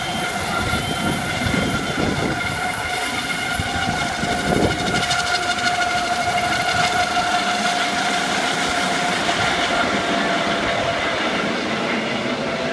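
Medical helicopter flying overhead: a steady turbine whine over the low beat of the rotor. The low beat fades over the second half as the helicopter moves away, while the whine holds on.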